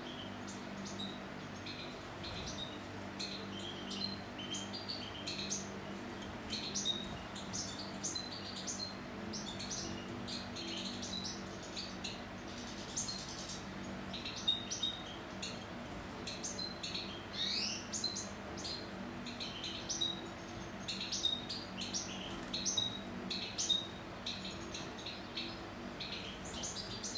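European goldfinches at the nest making many short, thin, high chirps and squeaks, the begging and feeding calls of a parent with five-day-old chicks, with one rising call partway through. A faint steady low hum runs underneath.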